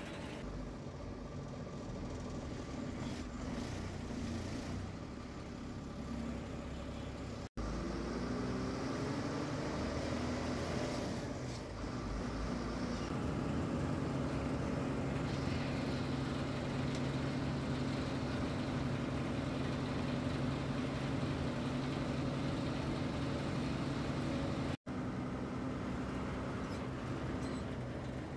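MSRTC bus's diesel engine running under way, heard from the driver's cab. About eight seconds in, the engine note climbs for a few seconds, then holds steady and a little louder. The sound cuts out for an instant twice.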